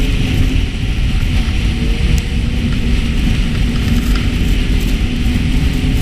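Snowmobile engine running steadily at speed, heard from the rider's seat, with a heavy low rumble and rushing noise from the sled travelling over the trail.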